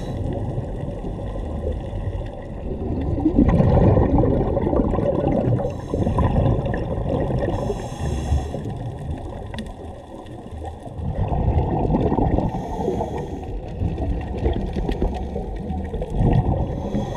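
Scuba diver's regulator breathing heard underwater: gurgling, bubbling exhalations, the loudest about four seconds in, alternating with shorter hissing inhalations.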